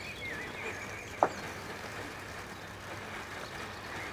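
Weco Andromeda fountain firework burning with a steady hiss of spraying sparks, with one sharp pop about a second in.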